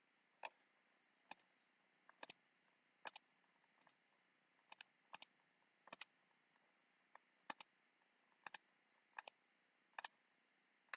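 Computer mouse buttons clicking: about a dozen short, sharp clicks roughly a second apart, a few of them in quick pairs.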